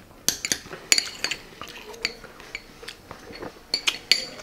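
Metal spoons and forks clinking against plates: a run of irregular sharp clinks with a short metallic ring, busiest in the first second or so and again near the end.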